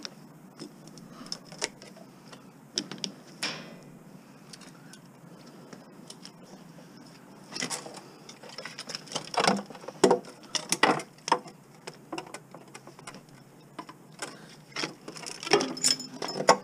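Irregular light metal clicks and knocks of washing-machine parts and hand tools being handled during dismantling, with busier stretches about halfway through and near the end.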